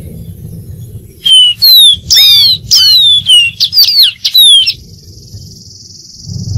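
Dark-throated seedeater singing: a quick run of loud, sharp whistled notes, mostly sweeping down in pitch, starting about a second in. The phrase ends in a held buzzy note. A low rumble runs underneath.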